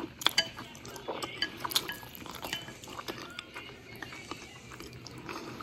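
Chopsticks clicking and scraping against a ceramic noodle bowl in a run of sharp clinks, along with close-up chewing.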